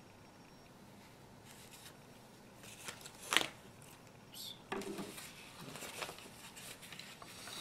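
Creased, pleated origami paper crackling and rustling as it is handled and opened out. There is one sharp crackle about three seconds in, then irregular rustling through the second half.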